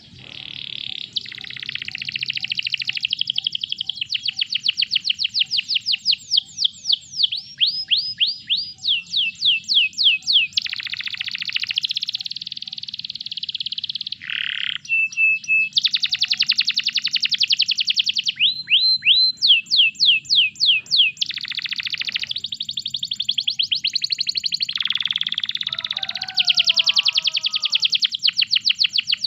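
Domestic canary in full song. It sings a long, unbroken run of fast trills and rolls, each phrase a rapid string of repeated high notes that switches to a new phrase every second or two.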